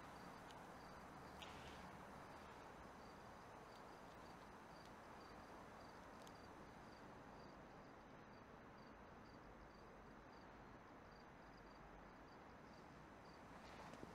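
Faint crickets chirping in a steady, regular rhythm over a low background hiss.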